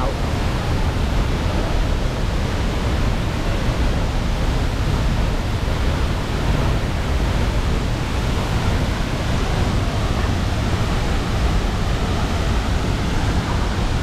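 Waterfall rushing steadily: one even, unbroken noise with a deep rumble underneath.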